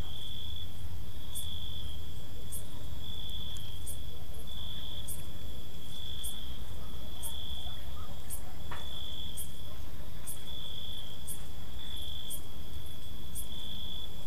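Night-time insect chorus: a cricket trills in regular pulses about once a second, while a second, higher-pitched insect chirps briefly at a similar pace, over a steady low rumble.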